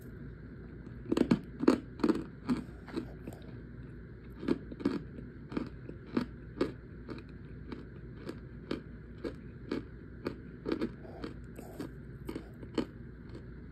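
Dry crunching of compressed cornstarch chunks, chalky and crisp: a quick cluster of loud crunches in the first couple of seconds, then a steady run of crunches about two a second.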